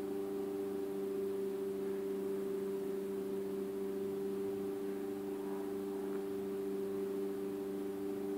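Steady low electrical hum made of a few fixed tones, with no change in pitch or level.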